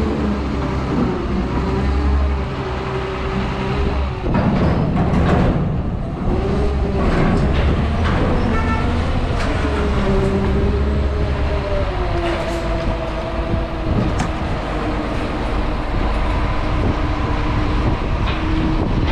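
Top-lift container forklift's diesel engine and hydraulics working as it lifts a 20-foot container off the truck's trailer, the pitch rising and falling with engine speed, with a few knocks.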